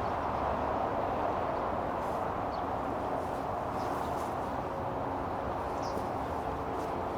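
Songbirds giving a few faint, short chirps over a steady rushing background noise.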